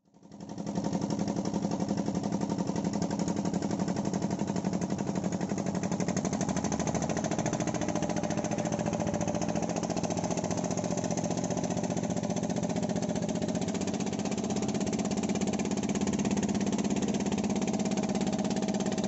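Boat engine running steadily with a fast, even pulse.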